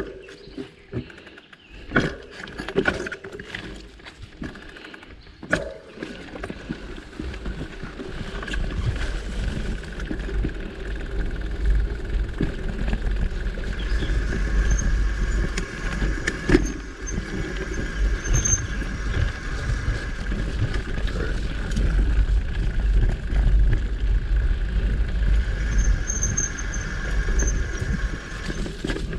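Mountain bike ridden along a dirt forest trail: the bike rattles with several sharp knocks over bumps in the first few seconds. From about eight seconds in, wind rumble on the bike-mounted microphone grows louder as the bike speeds up.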